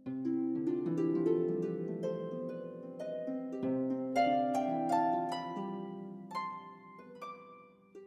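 Instrumental background music: a flowing run of plucked, harp-like string notes, each ringing and fading, over held chords.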